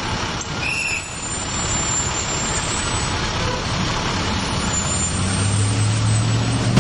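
Bus running along a road, a steady dense rush of engine and road noise. A short high beep sounds about a second in, and a low steady engine hum comes up over the last two seconds.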